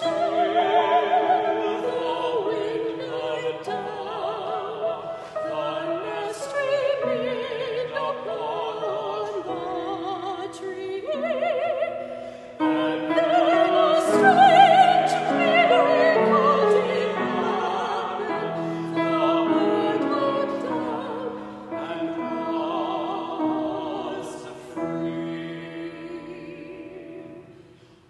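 Classical soprano singing with wide vibrato over piano accompaniment. The loudest phrase comes about halfway through, and the music dies away near the end.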